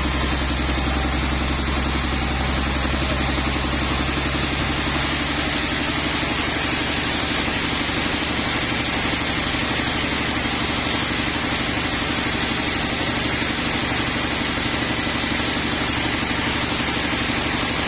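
Sawmill machinery engine running steadily, with a change in its low hum about four and a half seconds in.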